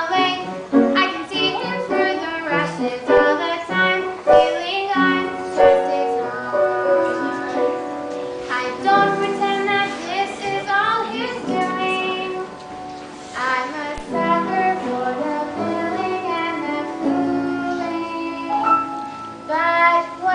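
Children's voices singing a stage-musical number over an instrumental accompaniment.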